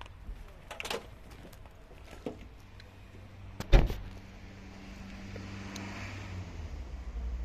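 A few light clicks, then a sharp, loud knock a little under four seconds in, followed by the steady low hum of a motor vehicle's engine running.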